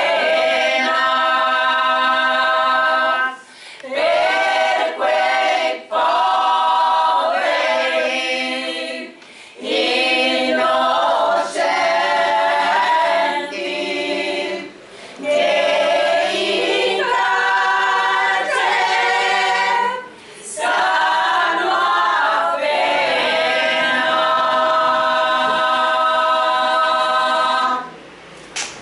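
A small women's choir singing a cappella, in phrases with short breaks between them; the song ends a little before the end.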